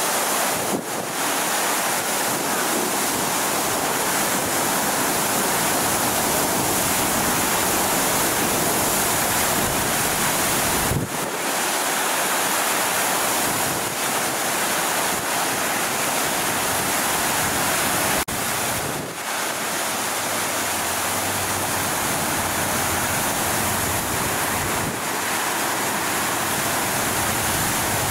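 Water gushing under high pressure from a sheared fire hydrant: a loud, steady rushing hiss that dips briefly a few times.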